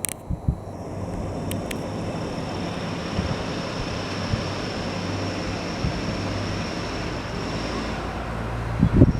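Steady outdoor rushing noise with a faint low hum, and a few heavy wind buffets on the microphone near the end.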